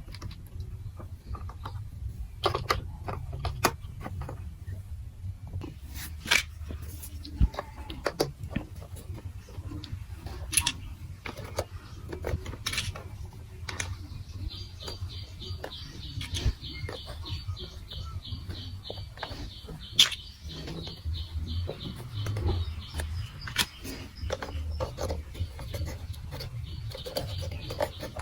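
Marbles running through a plastic marble run: scattered sharp clicks and clacks over a steady low rolling rumble. From about halfway, a rapid, evenly repeating high-pitched sound joins in.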